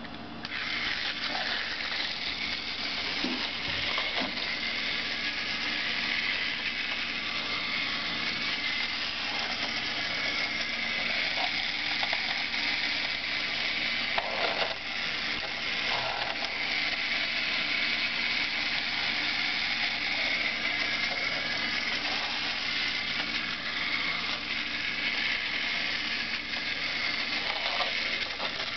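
Battery-powered Tomy Big Loader toy train running around its plastic track: the small electric motor and gearbox whir steadily, with the wheels rattling on the track. The whir eases briefly at a few points where the engine slows at the loading and transfer spots, as the set is designed to do.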